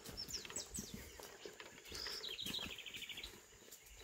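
Wild birds calling: a few short falling whistles in the first second, then a fast chattering trill of repeated high notes from about two seconds in, lasting about a second.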